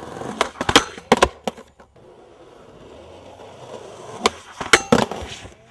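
Skateboard wheels rolling over hard pavement, with sharp clacks of the board, tail pops and landings, in a cluster about a second in and again near the end.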